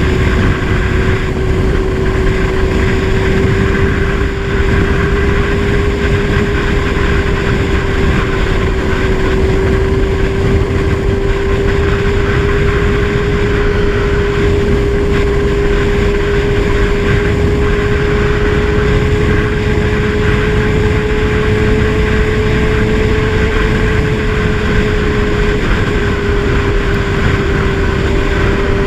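Kawasaki Z1000's inline-four engine running at steady cruising revs, its pitch creeping slowly upward, with a strong rush of wind on the microphone.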